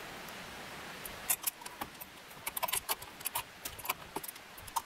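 Small metal clicks and clinks, irregular and sharp, starting about a second in: bolts and nuts being handled and fitted through steel mounting brackets on the roof rails.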